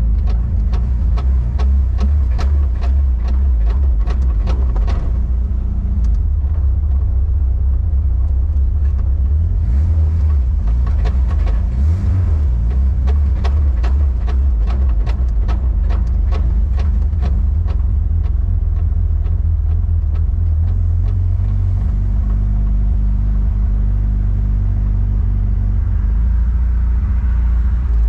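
Cab of a 1993 Toyota pickup with a turbocharged 22RE four-cylinder running on newly installed injectors as it drives: a loud, steady low rumble. Rapid sharp clicks sound through the first five seconds and again in the middle stretch.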